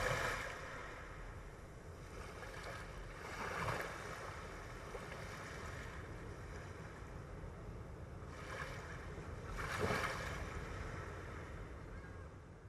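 Waves of open water washing in, rising and falling in four swells over a steady rush, the loudest near the end.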